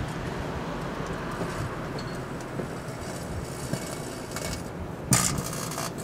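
Microwave oven running with a steady low hum. About five seconds in, a sudden loud burst of noise lasting under a second.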